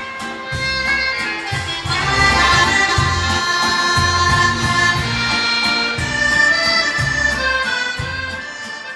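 Ballo liscio dance band playing, accordion melody over a steady bass beat. The music fades near the end.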